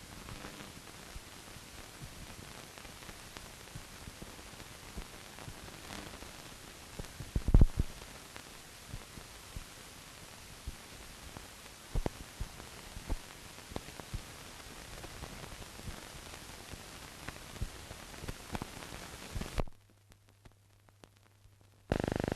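Steady hiss with scattered clicks and pops, one louder pop about seven and a half seconds in: the surface noise of a silent newsreel film with no recorded sound. Near the end the hiss cuts out to a faint low hum, and a loud steady tone starts just before the end.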